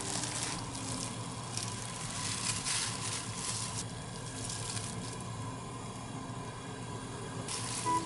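Water at a rolling boil in a pot, with splashing as hot water is scooped out and the rustle of a tied polythene bag of rice being lowered into it. Bursts of hiss and splash come about half a second in, from about one and a half to nearly four seconds, and again near the end.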